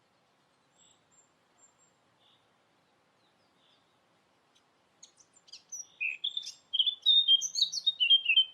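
A songbird singing: a few faint chirps at first, then about five seconds in a loud, rapid run of varied chirps and warbled notes.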